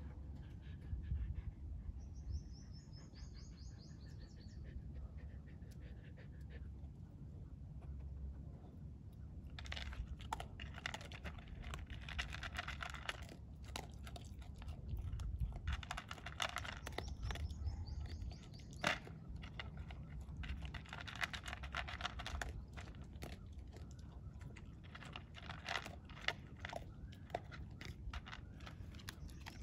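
A dog eating from a plastic bowl: crunching and chewing with sharp clicks of food and teeth against the bowl, starting about ten seconds in and coming in bouts. Before that there is a low rumble, with a bird chirping a short repeated call a few seconds in.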